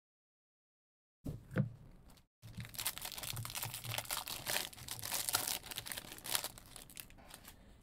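The foil wrapper of a Topps Series 1 jumbo baseball card pack being torn open and crinkled. A short rustle comes about a second in, then a dense, crackly tearing and crumpling that goes on to the end.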